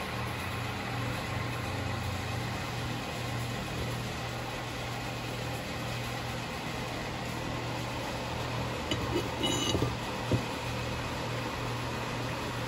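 Steady electric machine hum in a metal workshop, with a few light clicks and knocks from handling about nine to ten seconds in.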